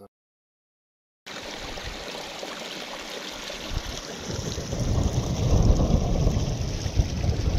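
After about a second of silence, a small grassy mountain stream runs and trickles over stones, with wind rumbling on the microphone that grows stronger from about four seconds in.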